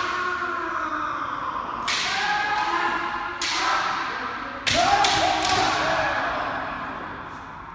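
Kendo sparring: long, drawn-out kiai shouts from several fighters over several sharp cracks of bamboo shinai strikes and stamping feet, the loudest about two-thirds of the way through.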